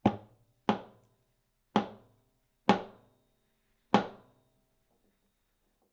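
Small hammer lightly tapping a steel cross pin five times, about a second apart, starting it into an AR-15 adjustable gas block to pin the gas tube in place. Each strike is a sharp metallic tap that rings briefly.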